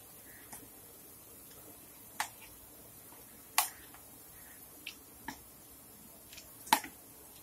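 Spoon knocking against a plastic mixing bowl while stirring chicken pieces in a thick marinade: a handful of sharp clicks, the three loudest about two, three and a half and nearly seven seconds in.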